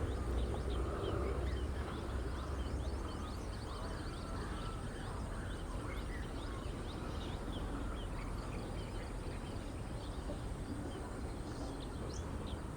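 Woodland birds chirping: many short, high chirps scattered throughout over a steady low rumble.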